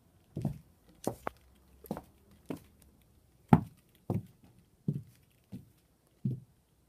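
Footsteps on a bare wooden subfloor: about ten dull thuds at a slow walking pace, the heaviest about halfway through.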